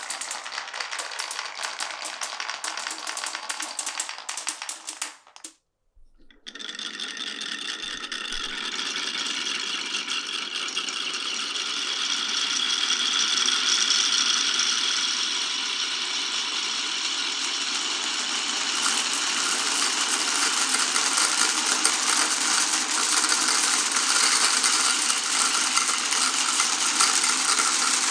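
Many glass marbles rolling and clattering down a marble run, a dense run of clicks and rattles. It breaks off briefly about six seconds in, then starts again and grows louder.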